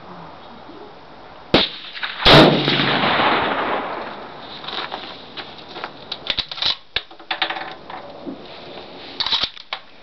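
A .30-06 M1903A3 Springfield rifle fired once: a loud shot that rings out and fades over about a second and a half, just after a sharper, shorter crack. A run of small clicks and knocks follows.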